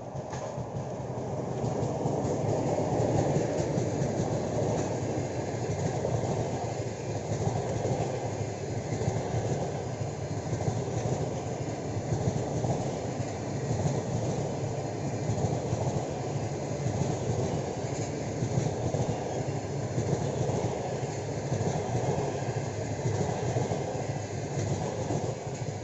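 Electric passenger train, an EP20 locomotive with double-deck coaches, passing at speed: a steady heavy rumble of wheels on rail with a clickety-clack from the rail joints. It builds over the first couple of seconds and then holds.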